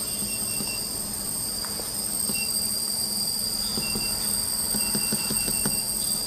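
Handheld laser welding machine running with a steady high-pitched electronic whine. Several runs of short beeps sound over it, typical of control-panel keys being pressed while the welding parameters are set.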